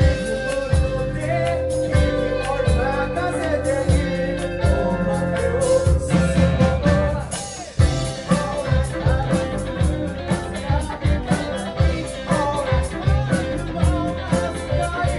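Rock band playing live: a steady drum beat, bass and guitar, with singing.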